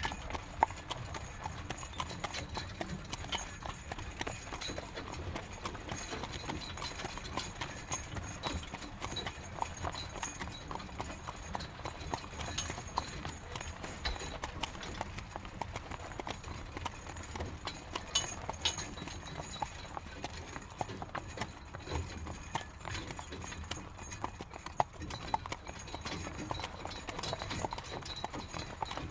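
Horse-drawn carriage moving along: the horse's hooves clip-clopping in a steady walking rhythm over the running noise of the carriage.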